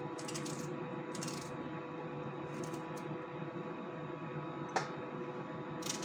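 Small knife slicing a red onion held in the hand, each cut a short crisp crunch that comes about once a second, over a steady background hum. One sharper click comes about three-quarters of the way through.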